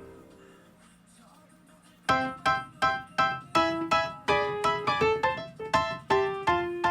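Background piano music: the end of one piece dies away, a short near-silent gap follows, and about two seconds in a new piece starts with a brisk line of single struck notes.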